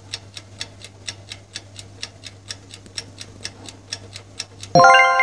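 Countdown-timer sound effect: a clock ticking evenly, about four ticks a second. Near the end it gives way to a bright bell-like chime that rings out for about a second, marking that the time is up.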